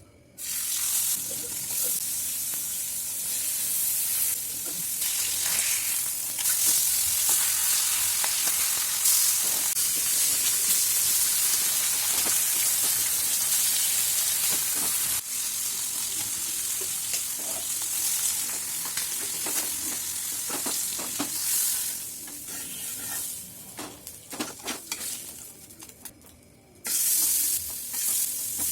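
Food frying in hot oil in a pan, sizzling steadily, with a utensil stirring and scraping. About 22 seconds in the sizzle drops away to scattered clicks, then it comes back loudly near the end.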